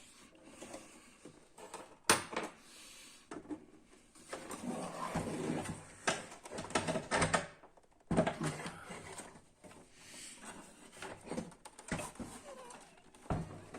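Plastic housing parts of a laser printer being handled and pried apart during disassembly: irregular clicks, knocks and scraping, with a sharp click about two seconds in.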